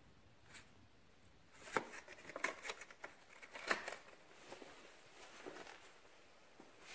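Faint scattered taps, clicks and rustles of fireworks boxes being handled, a handful of short sounds between about two and four seconds in.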